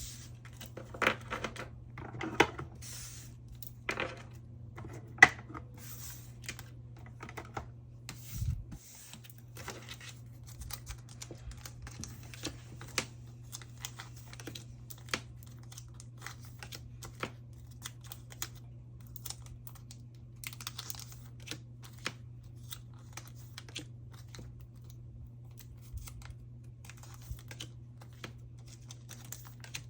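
Photocards being slid out of plastic sleeves and handled: many small irregular clicks, taps and light crinkles of plastic and card, a few sharper taps in the first third. A faint steady low hum runs underneath.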